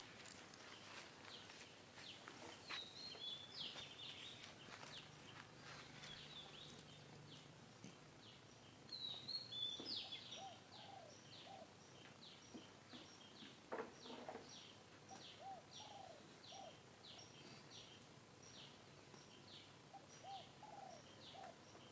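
Faint outdoor birdsong. Scattered high chirps come first, then about halfway through a steady series of short high ticks, about two a second, sets in, and a short run of three or four lower whistled notes repeats about every five seconds.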